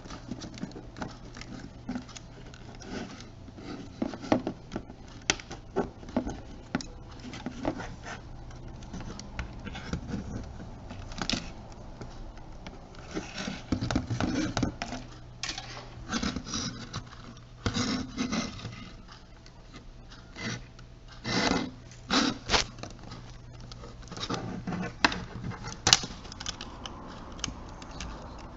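Small plastic camcorder housing parts being handled and fitted together: irregular clicks, light knocks and short scrapes, with a faint steady hum underneath.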